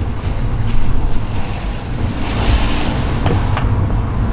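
VW Golf Mk6 1.4 TSI engine and road noise while driving, with a short hiss from the aftermarket blow-off valve venting boost about two seconds in.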